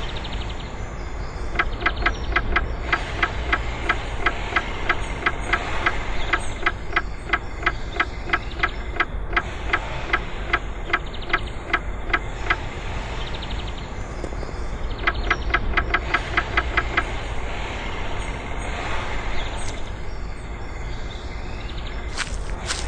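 Wooden mallet tapping in quick, even strokes, about three a second, on a sabre casting pattern and its wooden moulding box, in two runs with a pause between; a steady low rumble runs beneath.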